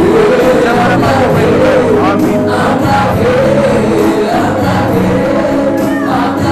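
Gospel worship music playing continuously: a group of voices singing a flowing melody over sustained instrumental notes, with light percussion strokes.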